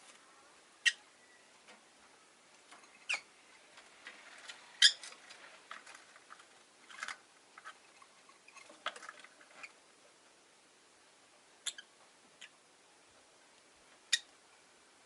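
Rosy-faced lovebirds giving short, sharp, high chirps at irregular intervals, the loudest about five seconds in, with a busier run of softer chirps through the middle and sparser single chirps near the end.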